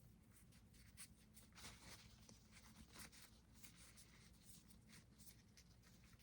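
Faint, irregular rustling and scratching of a rolled-up paper tissue being twisted inside a nostril to tickle the nose into a sneeze.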